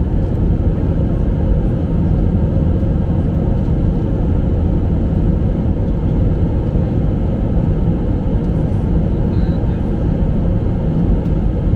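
Steady cabin noise of a jet airliner in flight, heard from inside the cabin. A constant low rumble of engine and airflow noise carries a faint steady hum.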